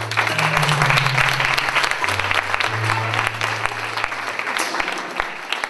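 Theatre audience applauding, with music playing underneath in low sustained notes that stop near the end.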